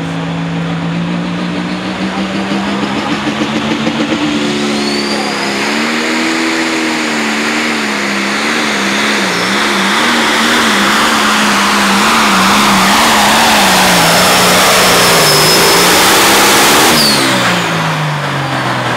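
John Deere 6030 limited pro stock pulling tractor's turbocharged diesel engine running flat out under load as it pulls the sled, its note climbing and wavering as it goes, with a faint high whistle above it. About seventeen seconds in the engine is let off and its note falls away quickly.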